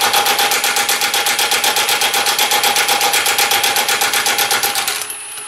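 Milwaukee M18 FUEL 2763-22 cordless high-torque impact wrench hammering rapidly in reverse on low-speed mode 1 as it works to break loose a 5/8-inch Grade 8 nut torqued to 100 ft-lb. About five seconds in the hammering stops once the fastener gives, and the tool runs on with a steady whine.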